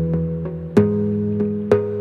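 Background music: plucked guitar-like notes sounding chords that change about every second.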